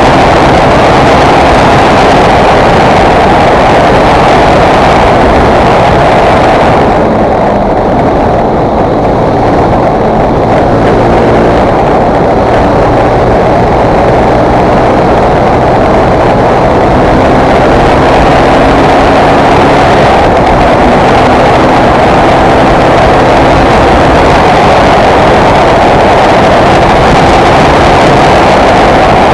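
Fantic Performance 125 motard's single-cylinder four-stroke engine running loud and steady while riding, easing off briefly about seven seconds in.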